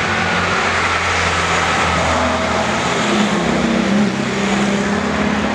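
Engines of vintage cars driving past one after another at low speed. A low engine note gives way to a higher one about two seconds in as the next car comes up.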